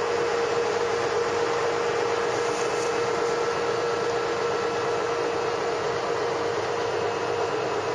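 Steady machine noise with a constant mid-pitched whine running through it, from the tractor carrying the tile plow running.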